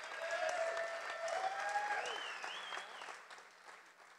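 Audience applauding, with voices calling out over the clapping; it swells and then dies away near the end.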